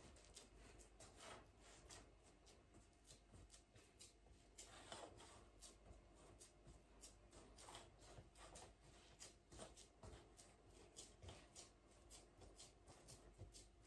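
Faint, repeated short scrapes and rustles of a spatula pressing a crushed digestive-biscuit crumb base down into a round metal cake tin.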